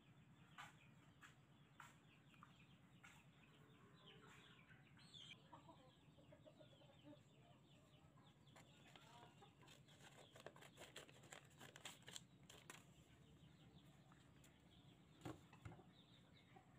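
Faint sharp snips of restored old steel scissors cutting through paper, with faint bird calls in the background.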